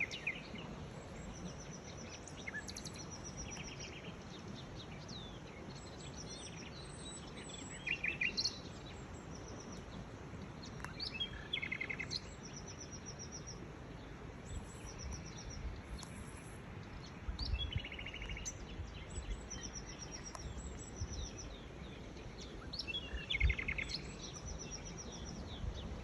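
Several common nightingales singing at once, their phrases overlapping: rows of quickly repeated high notes, buzzy trills and short whistled glides, with brief pauses between phrases. Now and then a low thump or rumble sounds under the song.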